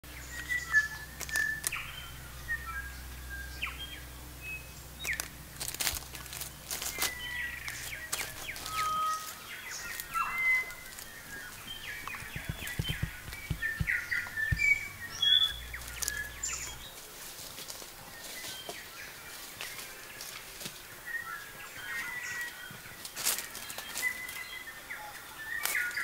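Mixed birdsong of New Zealand forest birds: many short chirps and whistles from several birds, with sharp clicks scattered among them and a low rumble underneath during the first nine seconds.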